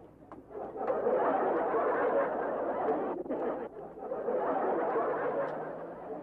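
Canned studio-audience laughter from a sitcom laugh track, rising in two swells with a brief dip between them.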